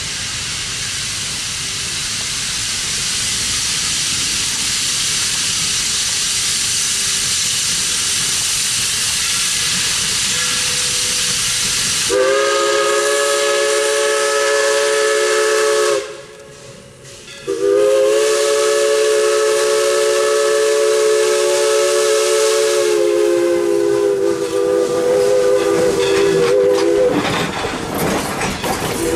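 Central Railroad of New Jersey 0-6-0 steam locomotive #113 approaching with a steady hiss of steam, then blowing its steam whistle, which sounds several notes at once, in two long blasts, the second held about ten seconds. Near the end the engine and train clatter past close by.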